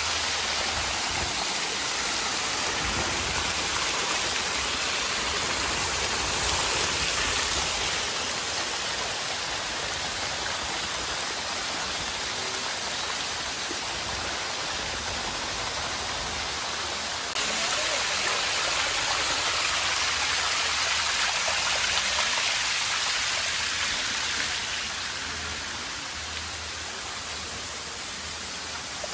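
Man-made waterfalls pouring onto rock and into a pool: a steady rushing splash, stepping up suddenly about two-thirds of the way through and getting quieter near the end.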